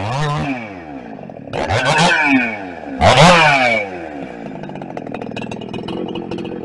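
Two-stroke chainsaw idling, with the throttle blipped three times: the pitch climbs quickly and falls back each time, the third rev loudest, then it settles back to a rattly idle.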